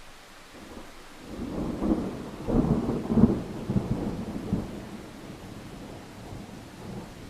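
A roll of thunder over steady rain: the rumble builds about a second in, peaks with several loud cracks, then dies away over a few seconds while the rain hiss carries on.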